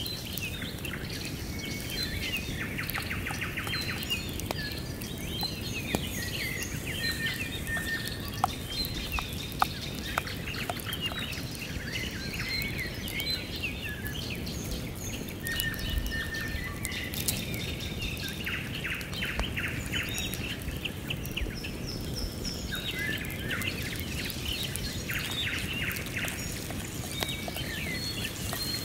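Several wild birds singing, with repeated chirps and a few rapid trills, over a steady low rushing background. A few sharp crackles from the wood fire come about a third of the way in.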